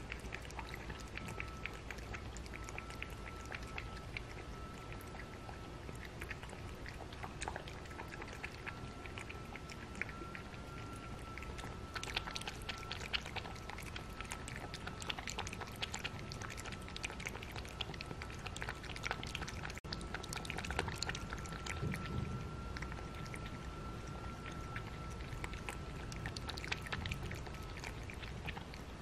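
A cat lapping water from a glass bowl: a long run of quick, light, wet tongue flicks, busier from about halfway through.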